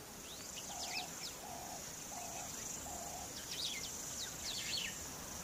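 Dry-season African bush ambience: a steady high insect drone with scattered short bird chirps, and a low flat call repeated four times at even spacing about a second in.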